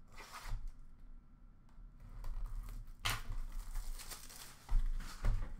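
Hockey cards and their packaging being handled: irregular rustling and crinkling, with a sharp rustle about three seconds in and soft knocks near the end.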